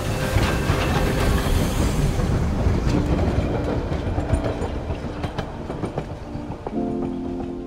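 Passenger train running past: a heavy rumble with the wheels clicking over rail joints, slowly fading.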